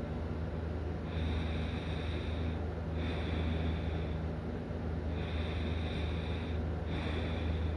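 A sleeping person snoring, breathing in and out in snores about a second and a half long with short pauses between, over a steady low hum.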